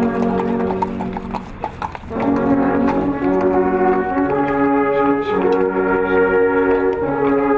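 Brass instruments playing slow held chords, with a short break about a second and a half in before the chords resume.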